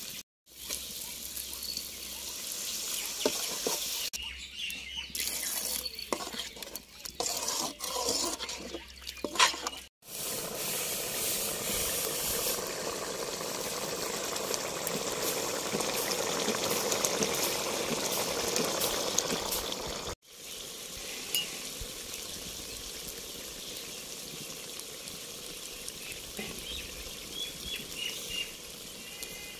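Chicken liver masala in an aluminium kadai: water splashing in the pan with some stirring, then the watery gravy boiling with steady bubbling for about ten seconds. In the last part the thickened gravy simmers and sizzles more quietly as it cooks down.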